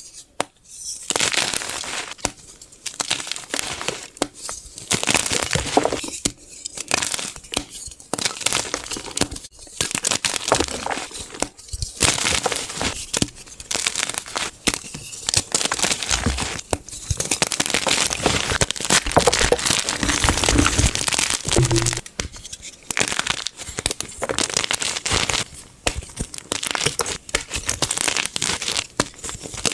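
Blocks of fresh gym chalk being crushed by hand, crunching and crumbling in a run of bursts broken by short sudden gaps. Some duller, deeper thuds come in around the middle.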